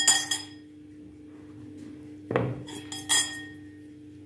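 A metal fork and ceramic dishes clinking: a few sharp, ringing clinks at the start and another group about three seconds in, with a dull knock just before the second group. A faint steady hum runs underneath.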